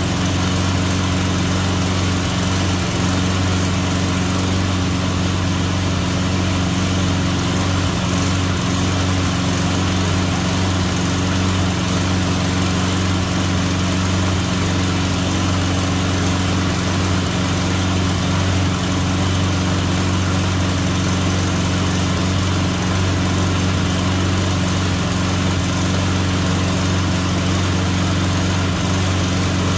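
Push mower's small engine running steadily at an even speed, with no change in pitch or level. It is on a test run with a newly fitted carburetor, meant to show whether it keeps running once warm instead of stalling.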